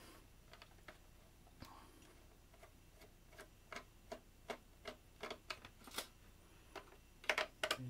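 Phillips screwdriver turning a screw out of a toaster's plastic base: a string of light, irregular clicks, about two or three a second, with a few louder ones near the end.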